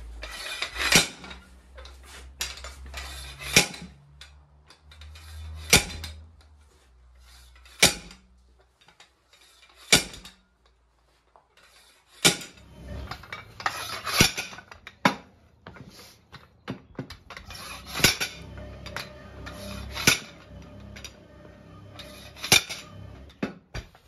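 Sharp metal clanks every second or two from a bead-breaking tool being worked around a deflated tire, breaking the tire bead loose from its wheel rim.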